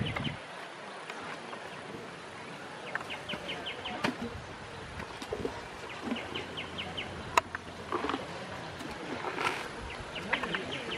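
A bird calling in quick runs of five or six short high notes, repeated several times over outdoor ambience, with a couple of sharp snaps in between.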